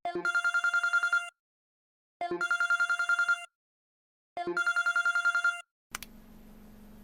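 Electronic phone ringtone in the style of a telephone bell: a rapid trill on two steady tones, ringing three times for about a second each, about two seconds apart. A faint low hum follows the last ring near the end.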